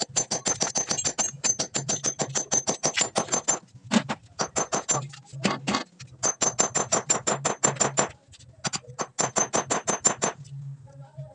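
Hand hammer striking metal at the wall by the window frame in quick runs of about six blows a second, each with a high metallic ring, pausing now and then and stopping near the end.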